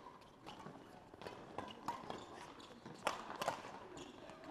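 Sharp, irregular clicks of badminton rackets striking shuttlecocks, mixed with players' footsteps on the court floor, in a large sports hall; the two loudest strikes come about three seconds in. Faint voices carry in the background.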